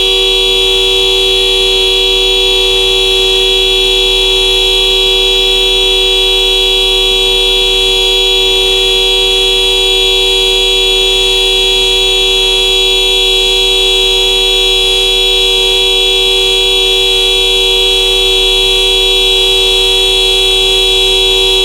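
Honda car horn held down, sounding as one steady, unbroken two-note tone.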